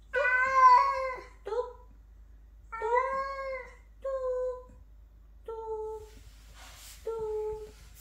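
Orange-and-white tabby cat meowing: a string of about four meows over the first five seconds, the first long and loudest. In the second half a few soft, steady hummed notes follow.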